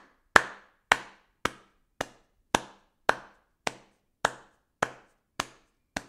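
Sharp percussive knocks in a steady beat, a little under two a second, each dying away quickly.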